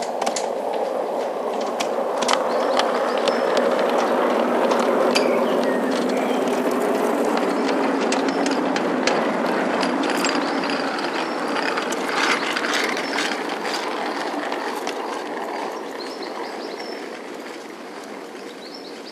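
A large-scale garden railway model train running past close by: a rumble of wheels and running gear with many sharp clicks from the wheels on the track. It gets louder over the first few seconds, then fades away through the second half as the train moves off.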